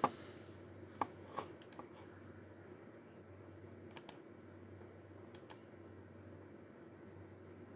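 Sparse, faint clicks of computer keys over a low steady room hum: a few single taps in the first two seconds, then two quick pairs of clicks around four and five and a half seconds in.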